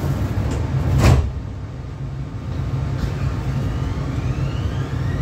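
Prague metro train heard from inside the carriage: the sliding doors shut with a single loud thump about a second in, over a steady low rumble. Near the end the traction motors start a rising whine as the train pulls away.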